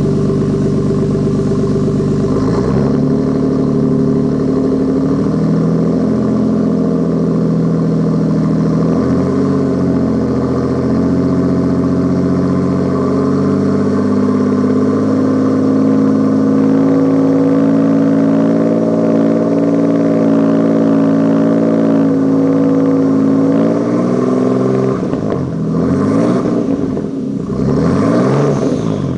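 Toyota Supra's turbocharged straight-six running through a new 4-inch exhaust, recorded at the tailpipe. It holds steady at engine speeds that step up and down a few times, then is revved in several quick blips near the end.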